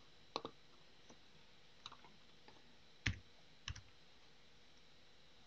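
A few separate, quiet computer keyboard keystrokes, spaced irregularly, over a near-silent room.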